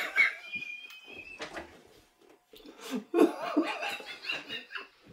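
A man laughing helplessly in breathy, stifled bursts, with a short lull about halfway through.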